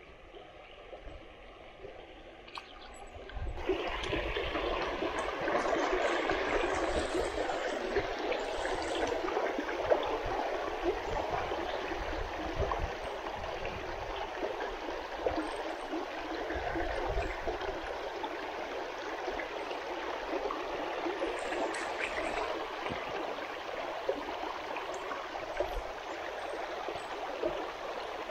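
Small river's water running steadily over its bed, jumping suddenly louder about three and a half seconds in.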